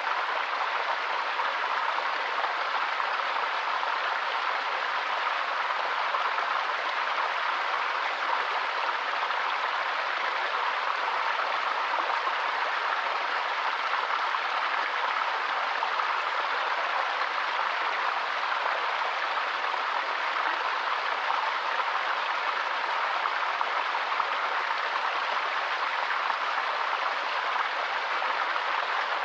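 White noise: a steady, even hiss that does not change at all, strongest in the middle of the range with no deep bass.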